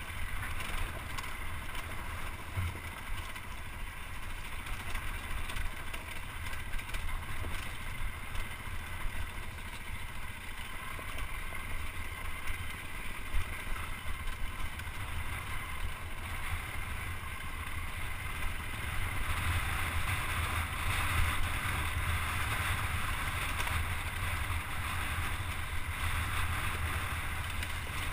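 Dirt bike engine running while riding, heard from the helmet with wind rumble on the microphone; it gets louder about two-thirds of the way through.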